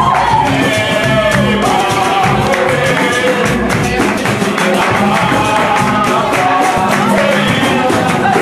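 Capoeira roda music: singing over a steady, continuous percussion rhythm with jingling hand percussion.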